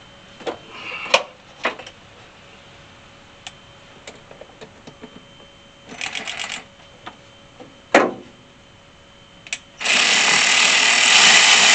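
Small cordless power screwdriver tightening heater hose clamps. Scattered clicks and knocks come first, with a short rattling burst about six seconds in and a sharp knock near eight seconds. Then the driver runs steadily and loud from near the end.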